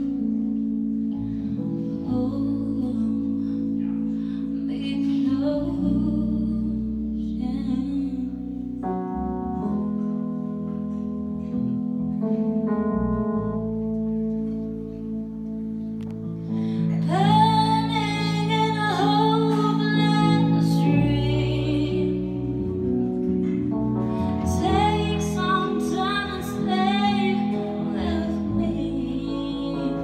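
Live R&B ballad: electric keyboard and electric bass holding sustained chords under a woman's singing voice. The accompaniment is softer at first, and the singing comes in loudest in two phrases in the second half.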